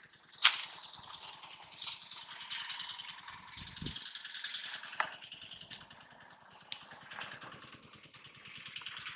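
A sharp click about half a second in, then light rattling and rustling as fishing gear and a bag are handled and carried, with footsteps through grass.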